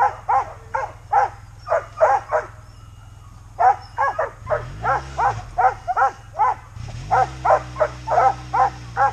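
Sled dogs in harness, husky-type, barking and yipping over and over, several sharp barks a second with a short pause in the middle. A low steady motor hum comes in about halfway through.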